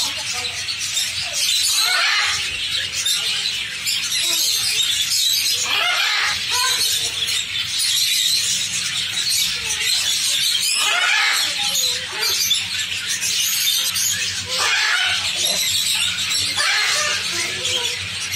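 Many small caged birds chirping and chattering at once in a dense, continuous chorus, with louder calls breaking through every few seconds over a faint low hum.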